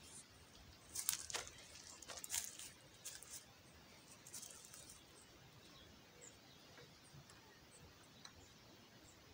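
Cloth rustling and scraping against a handheld camera, in several short scratchy bursts over the first five seconds, then only faint scattered ticks.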